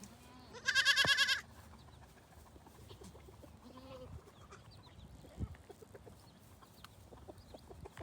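A goat bleating once, a loud wavering call of less than a second about a second in. Faint scattered knocks follow.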